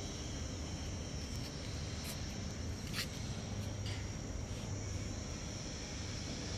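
Steady background ambience: an even hiss and low hum with a faint high steady whine, broken by a few short faint clicks.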